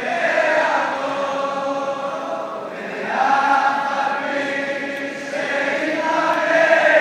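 Background music of choral chanting: several voices singing long held notes that swell and fade in phrases of about three seconds.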